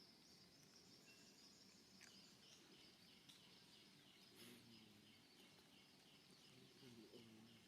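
Near silence: faint outdoor background with a faint high chirp repeating about three times a second.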